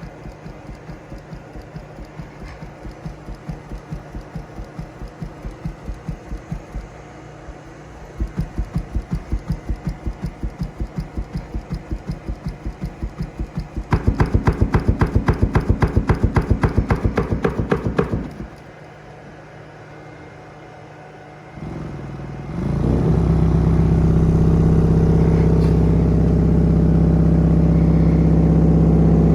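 A subwoofer played open air, out of its box, fed very low test tones, its cone pumping in a fast even pulse with a rattly chuff on each stroke. The pulse grows louder in two steps, about 8 and 14 seconds in, then stops short. From about 22 seconds in, a loud steady low hum with overtones runs on.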